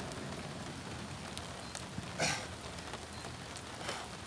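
Steady rain falling on pavement, an even hiss. About two seconds in there is one short, louder burst of noise, and a fainter one comes near the end.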